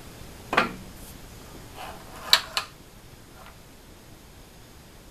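Metal knocks and clicks as an aluminium CNC router Z-axis assembly, an extrusion with linear rails and bearing blocks, is handled and tipped up on the bench: one ringing clunk about half a second in, then two sharp clicks close together about two seconds in.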